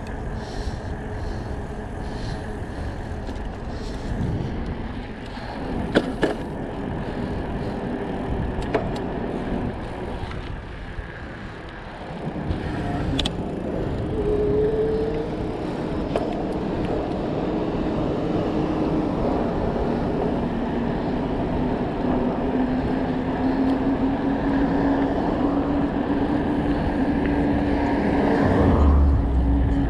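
Wind rushing over the microphone and tyres rolling on pavement while riding an electric bike, with a few sharp knocks. A steady droning tone comes in about halfway through and holds, growing louder near the end.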